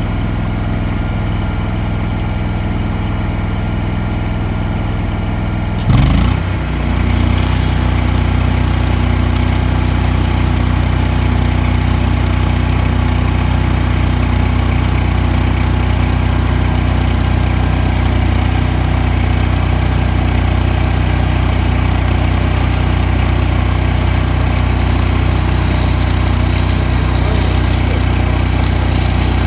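Hobart Champion Elite engine-driven welder running steadily. About six seconds in there is a sharp burst, and the engine settles into a heavier, evenly pulsing note with a steady hiss above it, as the machine takes the load of a stick-welding arc on pipe.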